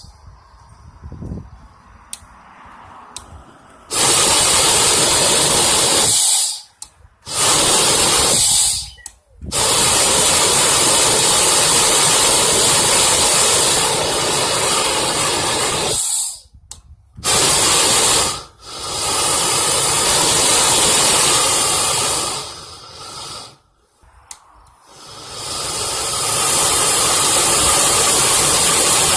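Propane weed-burner torch burning with a loud, steady hiss of gas and flame. It starts about four seconds in, then cuts out and comes back several times with short quiet gaps.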